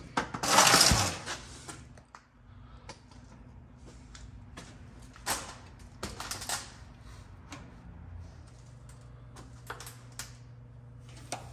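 Hand work on a truck engine mount's bolts: scattered light metal clicks and taps of bolts and tools, with a loud scrape lasting about a second just after the start, over a steady low hum.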